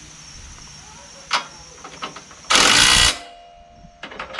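A cordless DeWalt driver clicks as a socket is fitted about a second in, then runs briefly on the trigger at about two and a half seconds, spinning for about half a second before its motor winds down with a fading whine.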